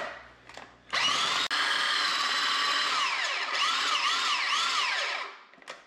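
Small electric food processor (mini chopper) running as its blade chops beef liver: a steady motor whine starting about a second in. Its pitch wobbles up and down about four times in the second half, then the motor winds down near the end.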